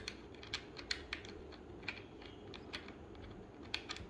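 Light, irregular clicks and taps of a small metal bolt and nut being handled and fitted into the soft plastic foot guard of a rear child bike seat.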